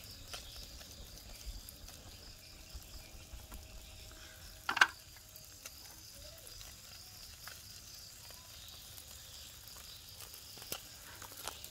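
Pangasius catfish grilling over charcoal: faint sizzling with small crackles from the coals, under a steady high insect chirring. One short, louder sound stands out about five seconds in.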